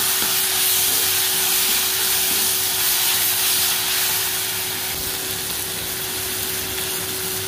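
Onions and tomatoes sizzling in oil in an iron kadai while being stirred with a wooden spatula, over a faint steady hum.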